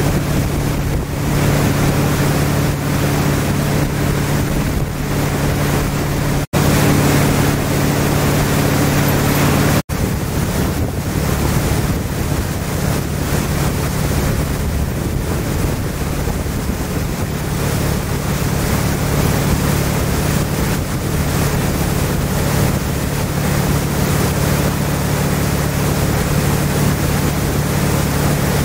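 Motorboat engine running steadily as it tows a hydrofoil sky ski, with wind buffeting the microphone and water rushing. The sound drops out briefly twice, about six and a half and ten seconds in.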